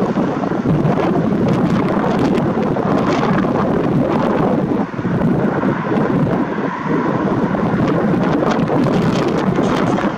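Wind buffeting the microphone: a loud, steady noise that dips briefly about five seconds in.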